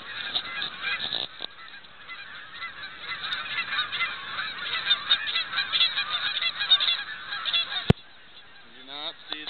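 A large flock of geese honking overhead, many calls overlapping in a dense, continuous chorus. A single sharp knock comes near the end.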